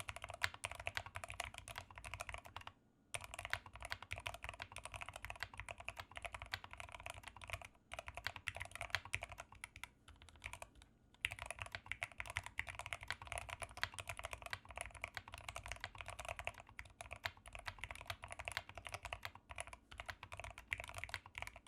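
Fast, continuous typing on a Rama M60 mechanical keyboard with Zealios V2 67g tactile switches and PBT keycaps, keys clacking in quick runs. The runs are broken by short pauses about 3, 8 and 11 seconds in.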